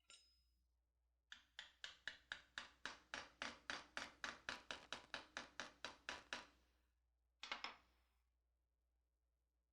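Hammer tapping a steel belt buckle blank held in a bending fixture in a vise, a quick run of about twenty light, evenly spaced metallic taps at about four a second, then one more tap near the end. The taps are driving the bent side down so the piece bottoms out in the fixture.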